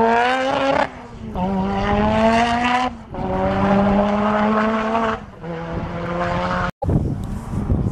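Race car engine accelerating hard, its pitch climbing in each gear, with quick upshifts about one, three and five seconds in. Near the end the engine note cuts off abruptly and gives way to a rougher, noisier sound.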